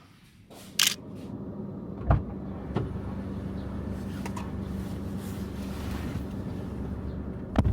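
Steady low rumble with a humming tone, like a vehicle running, with a few sharp clicks and a thump about two seconds in and another sharp click near the end.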